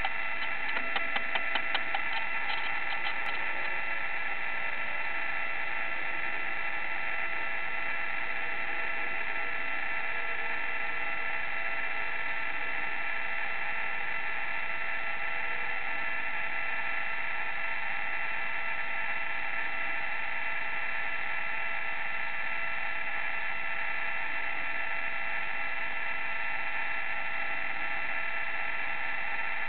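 A steady electrical whine at several fixed pitches over a light hiss, with a rapid, even run of ticks that fades out over the first few seconds.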